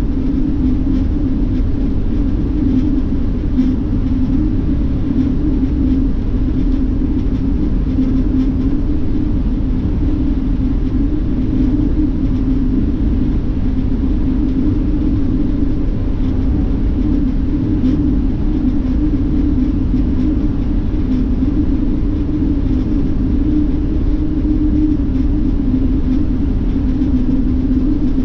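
Highway coach bus cruising at speed, heard from inside the cabin: a steady low rumble of engine and tyres on the road, with a constant drone, unchanging throughout.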